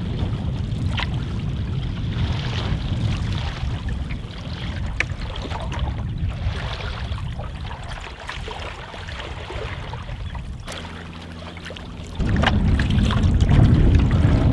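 Wind buffeting the microphone over choppy water splashing and lapping against a wooden canoe's hull. The wind noise dips briefly, then comes back louder about twelve seconds in.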